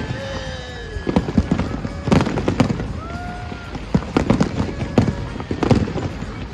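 A fireworks display: rapid, irregular bangs from bursting shells, several of them loud. A few short whistling tones glide over the bangs.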